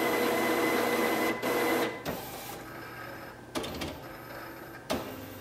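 Epson WorkForce WF-7710 inkjet printer's carriage motor running as the print head carriage travels along its rail to the cartridge-replacement position. It runs loudly with a steady high tone for about two seconds, then goes quieter, with two sharp clicks later on.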